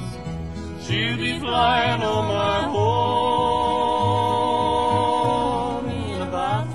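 Background music: a long, wavering melody note held for a few seconds over a steady bass pulse.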